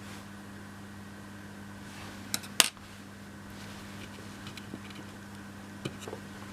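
Small hard clicks and taps of laser-cut MDF model pieces being handled and pressed into place, with one sharp click about two and a half seconds in and a few lighter ones near the end, over a steady background hum.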